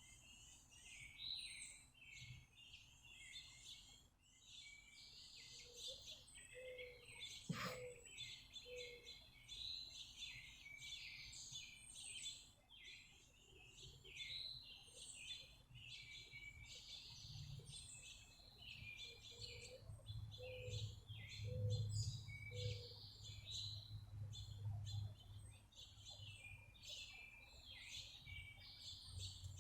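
Finches and other small songbirds chirping and twittering without pause, many calls overlapping. Twice a short run of four low, evenly spaced notes sounds under them, and there is a single sharp click about eight seconds in.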